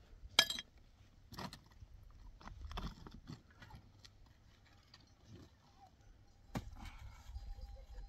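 A few sharp knocks over a low rumble, the loudest about half a second in.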